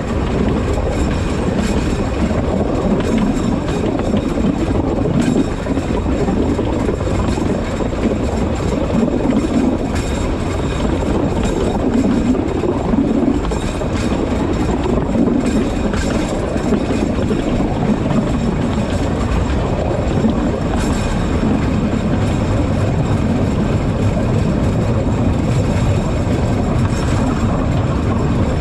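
Narrow-gauge forest railway train running steadily along the line: a continuous rumble of wheels on rails, with an occasional faint click as the wheels cross the track.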